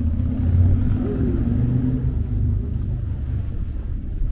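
Low, steady rumble of an engine running nearby, with city street noise around it.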